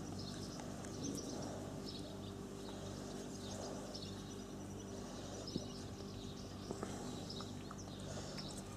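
Garden ambience: small birds chirping intermittently over a steady low hum, with a few faint knocks, including one about halfway through.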